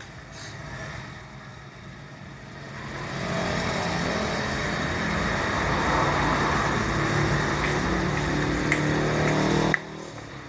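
HHO water-electrolysis rig powered by a DC inverter welder at about 26 volts and 80 amps, running with a loud rushing fizz and a low hum as it makes gas. The sound builds up over a few seconds, holds steady, then cuts off abruptly near the end.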